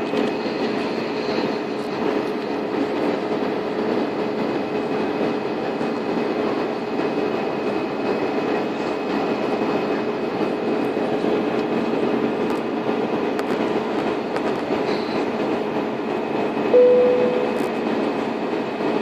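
Steady noise of engines and rushing air inside an airliner cabin in flight, with a constant hum under it. Near the end a single cabin chime rings and fades.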